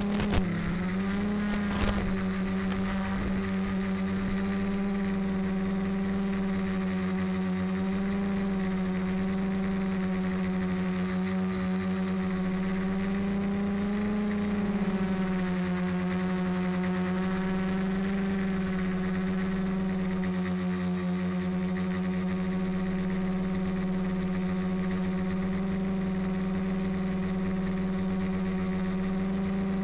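Multirotor drone's electric motors and propellers buzzing at a steady pitch. The pitch sags briefly near the start and rises a little about halfway through. Two sharp knocks come in the first two seconds.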